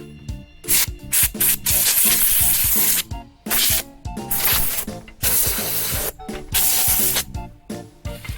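Compressed air hissing from an air blow gun in repeated blasts, a few short puffs and then several long bursts of a second or more, with background music underneath.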